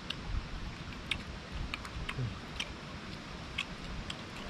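Eating sounds: light, irregular clicks and ticks of a spoon, dishes and chewing, a dozen or so spread unevenly over a steady background hiss.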